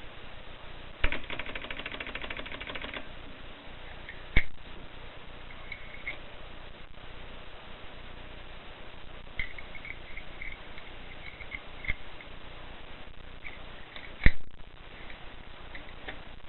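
Mercedes portable typewriter being worked: a quick, even ratcheting rattle lasting about two seconds, then a few separate sharp clacks with faint high squeaks between them, the loudest clack near the end.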